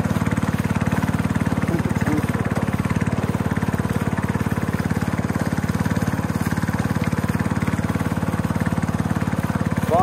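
Small boat motor running steadily at speed, pushing a wooden dugout canoe, with a fast, even engine beat throughout.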